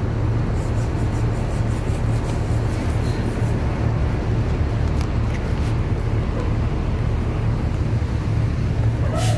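Hino city bus engine idling with a steady low drone, with a short sharp click near the end.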